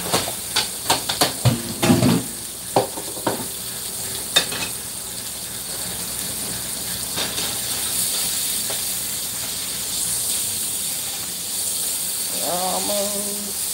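Mahi mahi fillets sizzling in a hot skillet, a steady hiss, with several sharp clinks of a fork and utensils against the pan and plate in the first few seconds.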